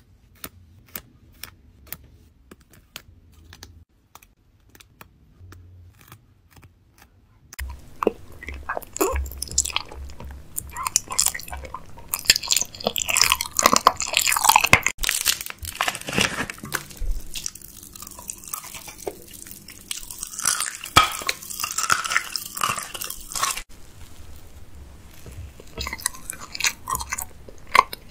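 A person chewing and crunching food with the mouth close to the microphone, starting about seven seconds in and going on with loud crunchy bites. Before that there are only faint scattered clicks.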